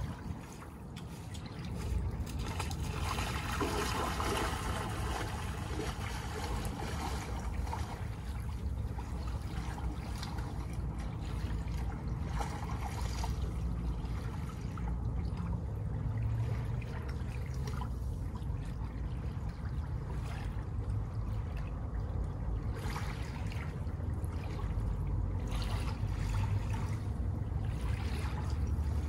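Water lapping and trickling at the shoreline over a steady low rumble, with a brighter swell of splashing noise a few seconds in.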